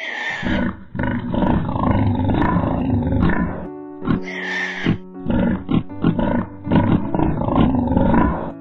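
Pigs grunting loudly, with a couple of high falling squeals near the start and about four seconds in, over background music with held notes.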